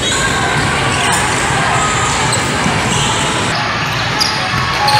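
Live basketball game sounds on a hardwood court: a ball bouncing and short sneaker squeaks over a steady din of the hall.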